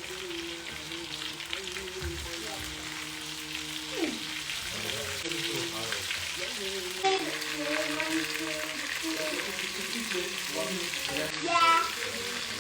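Gram-flour-battered cod fillet pieces sizzling steadily in hot oil on a low-to-medium flame, with a louder crackle near the end.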